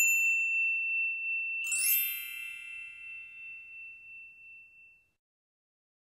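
Bell-like chime sound effect. A clear high tone rings steadily for almost two seconds, then a brighter chime with many overtones strikes and fades away over about three seconds.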